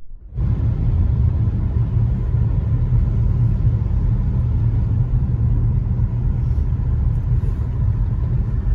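Steady low rumble of a car driving, heard from inside the cabin: engine and tyre noise on a wet road. It starts abruptly about half a second in.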